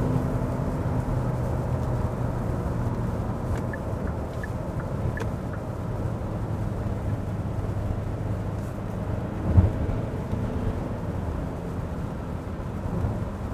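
Cabin noise of a 2021 Hyundai Santa Fe cruising on a wet road: a steady low drone from the 2.2-litre diesel and the tyres. A single thump comes nearly ten seconds in.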